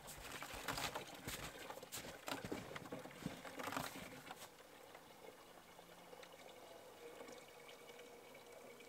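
Maple sap poured from a plastic pail into a plastic jug, trickling and splashing faintly. Footsteps crunching in snow during the first few seconds.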